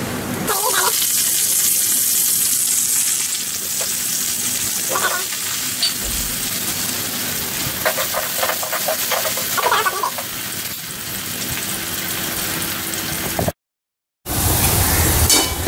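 Diced potato and green chillies frying in hot oil with cumin seeds in a metal kadhai, sizzling steadily while a steel spoon stirs and scrapes the pan now and then. The sizzling jumps up about half a second in and cuts out for a moment near the end.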